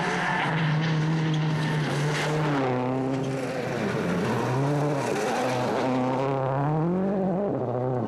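Onboard sound of a World Rally Car at stage pace: the engine revving up and dropping back several times as it changes gear, over steady road and tyre noise.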